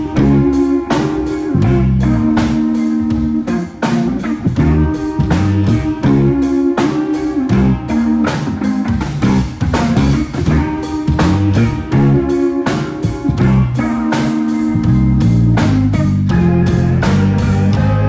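A band playing a groove with electric guitar and drum kit, the drums striking in a steady rhythm. From about three-quarters of the way in, the low end fills in and runs on more steadily.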